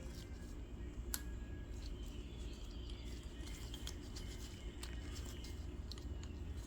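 Scattered light clicks and taps of small engine parts being handled, over a steady low background rumble.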